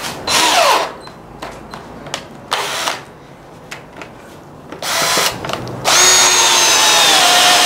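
20V cordless drill boring a one-inch auger bit into a wooden beam: a few short bursts on the trigger, then from about six seconds in a steady run whose whine drops slightly as the bit bites into the wood.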